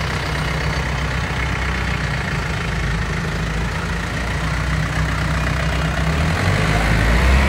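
Yanmar US40 tractor's four-cylinder diesel engine idling steadily, a little louder near the end.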